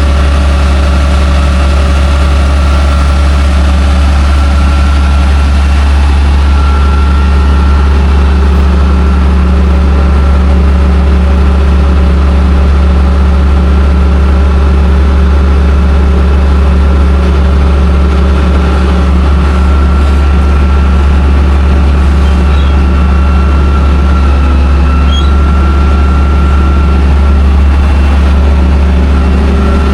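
Vehicle engine running steadily, a loud, unchanging low drone with no revving or breaks.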